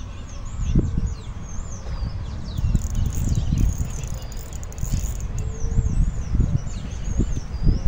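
Birdsong: a songbird repeating quick, swooping high notes again and again, over a steady low rumble.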